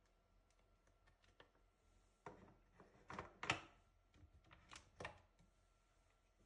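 Quiet room with a handful of faint clicks and knocks, clustered from about two to five seconds in.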